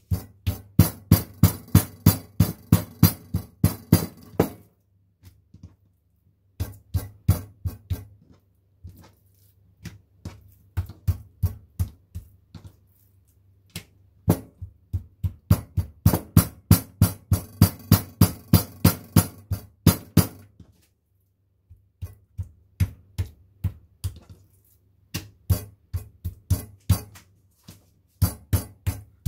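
Meat mallet pounding pork fillet thin: quick repeated strikes, about three or four a second, in runs of a few seconds with short pauses between.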